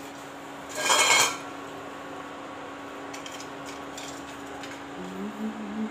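Kitchen utensils clatter briefly about a second in, with a ringing metallic clink, over a steady low hum.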